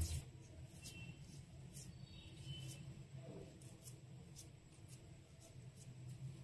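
Quiet handling of a wooden idiyappam press as soft rice-flour dough is pushed into it: faint light ticks and scrapes, about one a second, over a low steady hum.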